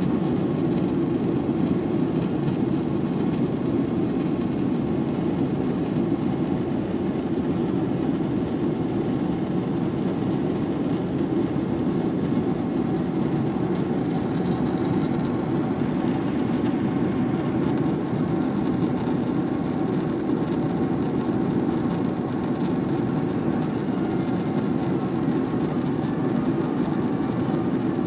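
Boeing 767-300ER jet engines and rushing air, a steady noise heard from inside the cabin over the wing during the climb after takeoff.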